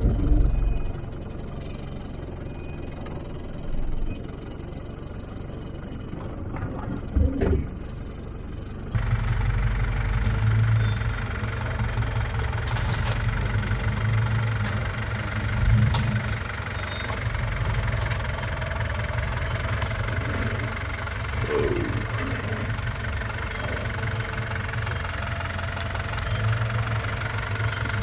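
Land Rover Defender 110's engine running at low revs as the truck crawls down rocky ledges, with a few short knocks and thumps. The engine sound becomes louder and fuller about a third of the way in.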